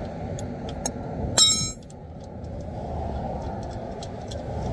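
Lug wrench working a locking lug nut loose on a car wheel, with scattered small metal clicks and one sharp metallic clink that rings briefly about a second and a half in. Steady passing traffic behind.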